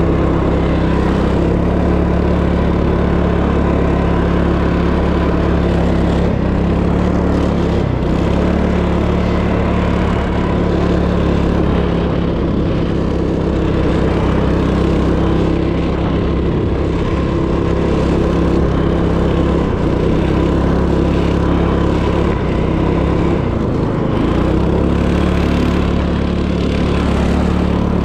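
Motorized snowboard's small petrol engine running steadily under way, its pitch dipping and rising slightly now and then.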